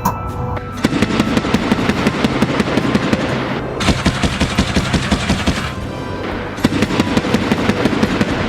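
Automatic fire from a BTR-82A's turret weapons (30 mm cannon and 7.62 mm machine gun) in three long rapid bursts, with short breaks about four and six seconds in.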